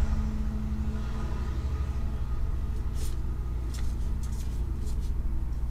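Steady low hum in the background, with a few short swishes of Pokémon trading cards being slid off a stack about three to five seconds in.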